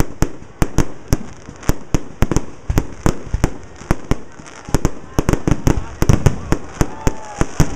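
Fireworks display: aerial shells bursting in an irregular series of sharp bangs, a few a second at first and coming thicker in the second half.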